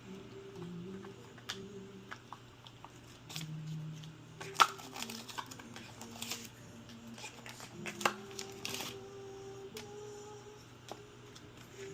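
Product packaging being unwrapped and handled: crinkling and tearing with scattered clicks, the sharpest about four and a half seconds in and again around eight seconds. Soft background music plays underneath.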